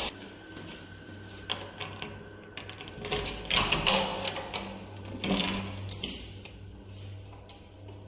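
Handheld-camera recording of someone working a metal lever door handle: scattered clicks, knocks and handling rustle over a low steady hum.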